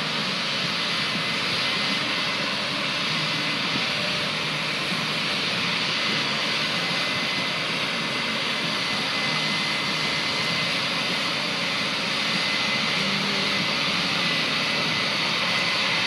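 Steady engine and machinery roar, mostly a broad whooshing hiss, with a faint high whine and a low hum running under it.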